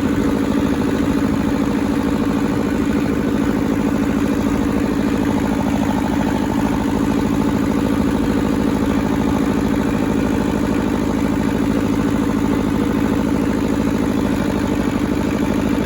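Small Toyosha S88 diesel engine of a Hinomoto E150D compact tractor running steadily at a fixed hand-throttle setting, with a dense diesel clatter, warming up after a cold start.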